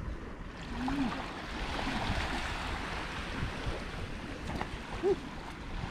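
Small waves washing up a sandy beach: a steady hiss of surf that swells about two seconds in and then eases, with a couple of short faint voice sounds.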